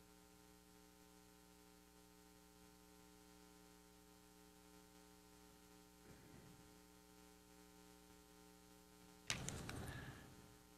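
Near silence with a steady electrical hum. A short handling sound comes near the end.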